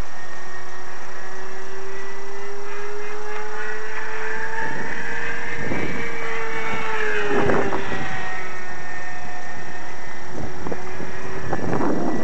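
Electric motor and propeller of a GWS Corsair RC foam park-flyer whining steadily in flight. The pitch climbs slowly, drops away about eight seconds in, then holds steady. A few short gusts of rushing noise come through as well.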